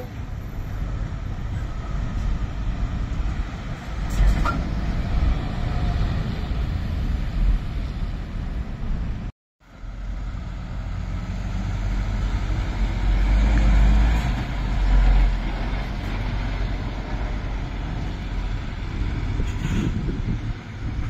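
Diesel engines of Scania articulated lorries passing close by with tyre and road noise, a low steady rumble. It breaks off in a brief silence about nine seconds in, and swells to its loudest a few seconds later as a lorry goes past.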